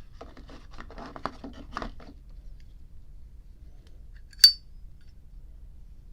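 A Zippo lighter handled by hand: light clicking and rattling for about two seconds, then one sharp metallic click with a brief ring about four and a half seconds in.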